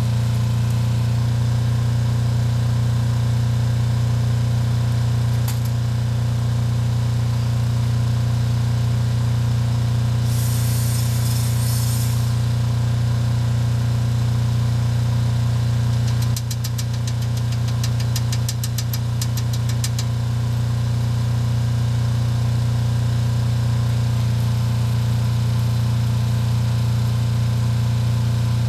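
An engine running steadily with a deep hum. About ten seconds in comes a short hiss lasting under two seconds. Later a rapid run of sharp ticks lasts about three and a half seconds.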